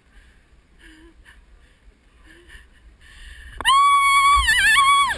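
A high-pitched scream starting suddenly about three and a half seconds in, held and wavering for about a second and a half, from a rider launching down a zipline.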